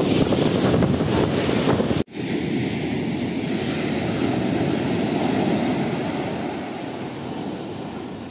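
Sea surf washing onto the beach with wind buffeting the microphone. The noise cuts out suddenly about two seconds in, comes straight back and slowly fades toward the end.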